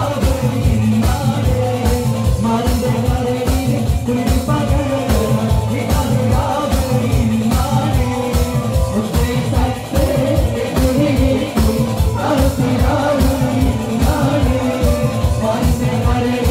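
A man singing a Malayalam Mappila song into a microphone over amplified backing music with a steady fast beat of about three hits a second.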